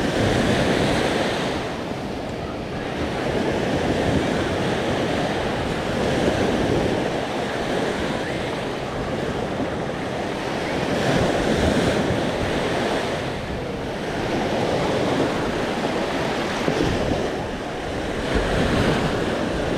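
Sea waves washing onto a sandy beach, the surf swelling and easing every few seconds, with wind buffeting the microphone.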